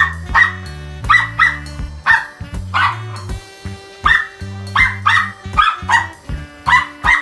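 A small dog barking repeatedly, a dozen or so sharp high barks, often in quick pairs, over background music with a steady bass line.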